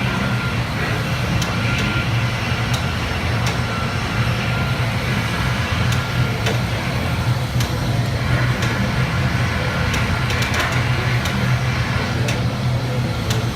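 A steady low mechanical hum with scattered sharp clicks.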